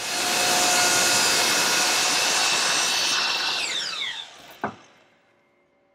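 Power miter saw starting up and cutting through a premium pine board, then the blade spinning down with a falling whine. A single sharp knock comes about four and a half seconds in.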